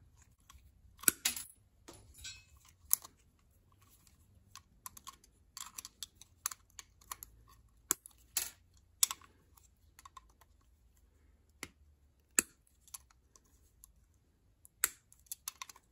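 Pliers working the wire cap bail off a 1946–48 Ford flathead crab-style distributor: irregular small metallic clicks and taps of wire and tool against the distributor housing.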